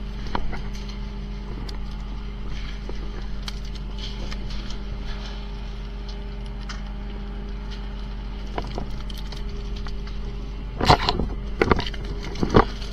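Steady low hum of a fishing boat's engine under scattered light knocks from fish being handled on a wooden sorting board, with a quick run of loud thumps near the end.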